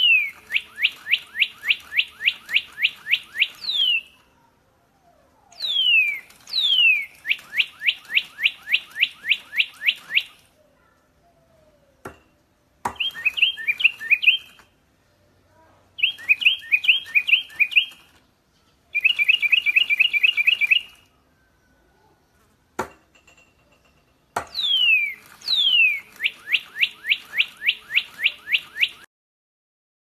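Electronic toy parrots playing recorded bird chirps: bursts of a few seconds of quick, falling chirps in a row, alternating with shorter warbling trills, separated by pauses and a couple of sharp clicks.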